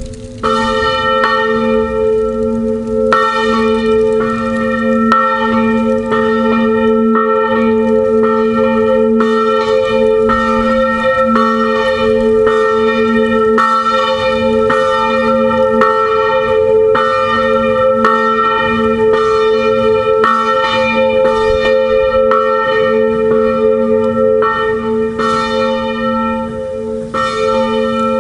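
A swinging church bell, one of a five-bell ring tuned in F, rung 'a distesa' with its clapper striking about once a second. Each stroke rings on into the next, so the bell's tones sound continuously.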